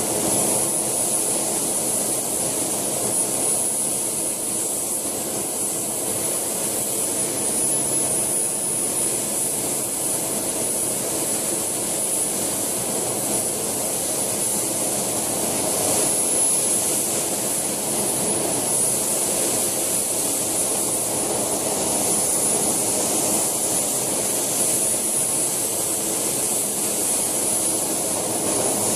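JetCat PHT2 model helicopter turbine running steadily and turning the main rotor of a scale Alouette II model, a steady rushing noise with a thin, high whine over it.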